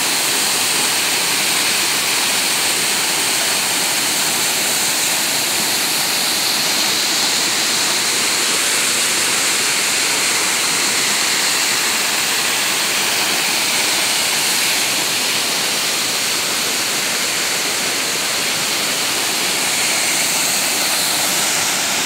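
Waterfall: several streams of water falling over rock into a pool, a steady, even rush of water.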